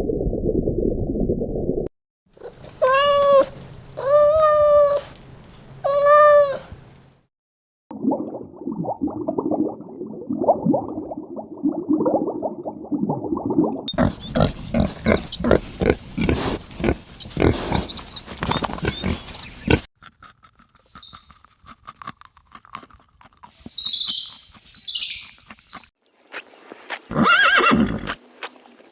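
A run of different animal calls, one after another, each cut off sharply: three pitched calls about a second apart, then rougher grunting-like and pulsing calls, then high chirps near the end.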